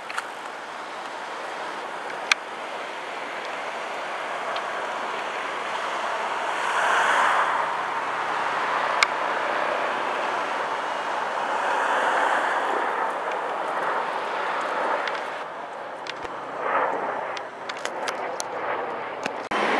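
Eurocopter EC135 helicopter passing low overhead, its rotor and turbine noise building to a peak about a third of the way in, swelling again near the middle and easing a little towards the end. A couple of sharp clicks stand out briefly.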